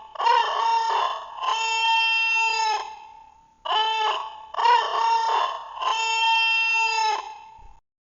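Creature call sound effect: a short note followed by two longer held, crowing-like notes, and the same call played a second time.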